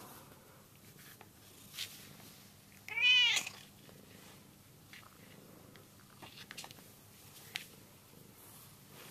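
A domestic cat meows once, about three seconds in: a short call that rises and falls in pitch. A few faint clicks come before and after it.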